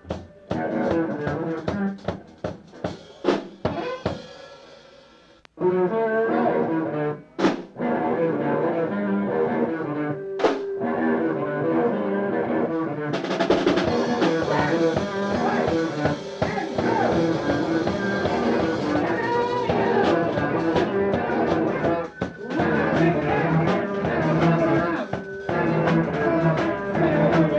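Rock band playing, drum kit to the fore. It opens with stop-start hits and a short lull about four seconds in, then the full band comes in at about five and a half seconds and fills out further around thirteen seconds.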